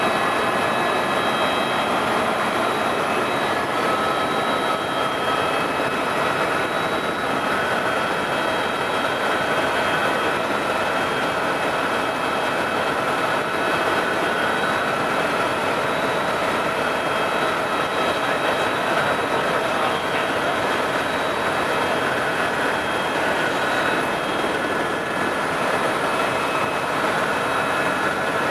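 Steady cabin noise of a tour helicopter in flight: a constant rush of engine and rotor noise with a few thin, steady high-pitched whining tones over it.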